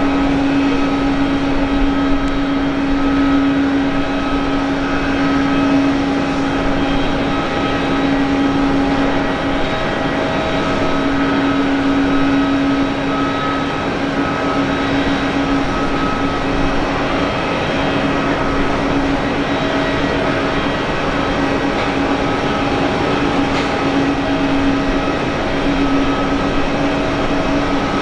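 Jet airliner engines at taxi idle: a steady whine over a rumbling roar, unchanging in level.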